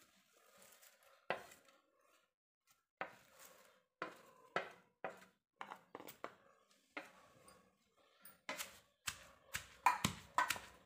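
Scattered knocks and scrapes as fried mint leaves are tipped from a steel plate into a stone mortar and pushed in with a wooden spatula. Then, about two-thirds of the way through, a wooden pestle starts pounding the mint in the stone mortar, a steady run of thuds about two a second.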